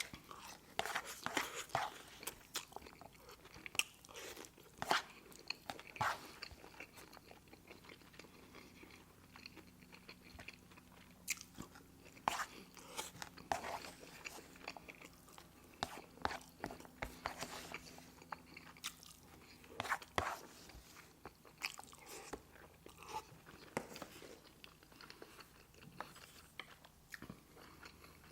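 Close-miked chewing and lip-smacking of a person eating, with irregular clicks and smacks throughout.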